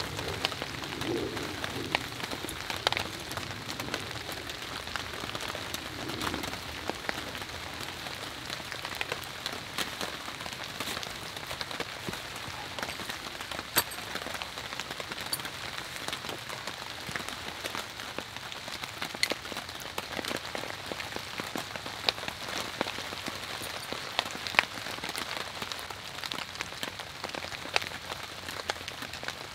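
Steady rain falling on a tarp pitched overhead, with single drops striking it sharply at irregular moments.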